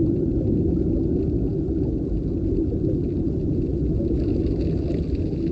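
Steady low underwater rumble from a coral-reef documentary's soundtrack, with faint higher tones coming in about four seconds in.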